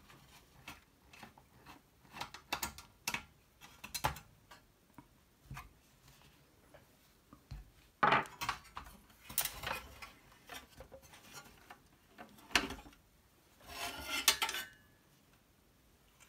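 A floppy drive on its metal bracket is unscrewed and worked out of a Macintosh Plus's sheet-metal chassis: scattered metal clicks and clinks, a few sharper knocks, and a short scrape near the end as the drive slides free.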